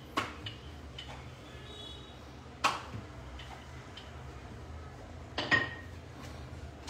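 Kitchen utensils knocking against a hard counter: three sharp knocks, near the start, about two and a half seconds in and about five and a half seconds in, with a few lighter clinks between, over a low steady hum.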